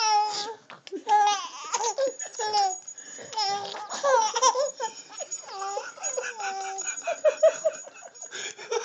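A three-month-old baby laughing hysterically in a string of high-pitched squeals and giggles as he is nuzzled, ending in a quick run of short laughs.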